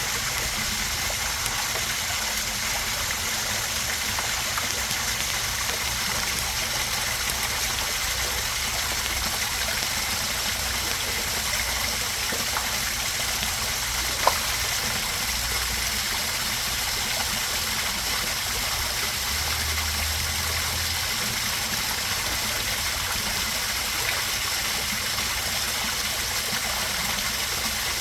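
Backyard koi pond waterfall splashing and trickling steadily. One sharp click about halfway through.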